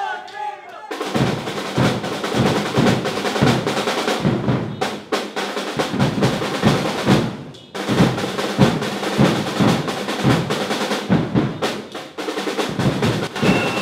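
Rapid, continuous drumming and banging of a protest noise barrage, with a few abrupt breaks.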